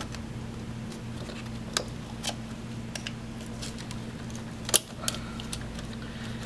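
Scattered light plastic clicks and rattles as a wiring harness and its connectors are handled and plugged in at the electric radiator fans, the sharpest click about three-quarters of the way through, over a steady low hum.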